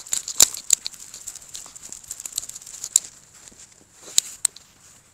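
A small dog walking on snow: irregular crisp crunching steps, mixed with sharp clinks from the metal ID tag on its collar. The clinks are loudest near the start and just after four seconds.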